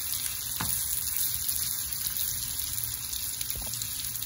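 Chicken pieces sizzling in garlic butter in a frying pan, a steady hiss.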